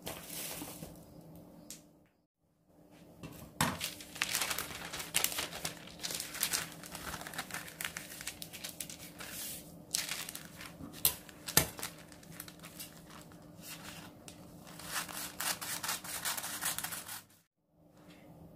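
A sheet of parchment baking paper crinkling and rustling as it is handled and folded, with many sharp crackles.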